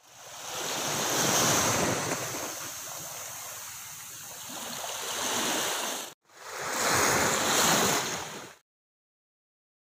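Waves washing onto shoreline rocks, with wind, swelling and ebbing. The sound breaks off for an instant about six seconds in, comes back, and stops abruptly about two and a half seconds later.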